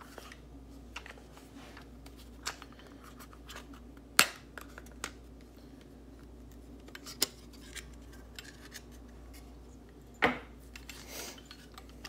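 Scattered clicks and scrapes of a CO2 BB air rifle being handled as its cartridge compartment cover is pulled open, with two sharper clicks about four seconds in and about ten seconds in, over a low steady hum.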